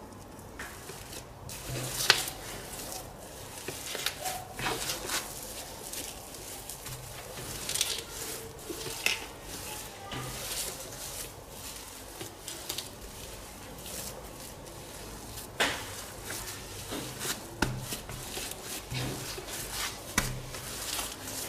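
Homemade slime being mixed and handled, giving irregular wet clicks, squelches and light knocks, with a sharper click about two seconds in and another near the middle.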